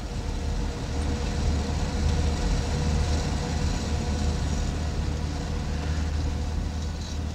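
A car's engine running steadily with road noise, heard from inside the cabin as a low, even rumble.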